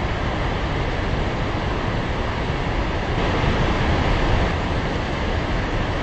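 A large waterfall making a steady rushing noise with a deep rumble underneath.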